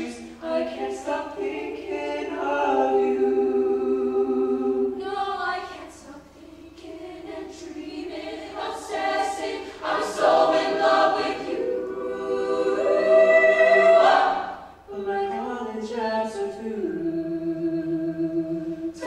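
Mixed-voice show choir singing unaccompanied in several parts, holding chords that swell to their loudest about 13 to 14 seconds in, then break off briefly before the next phrase.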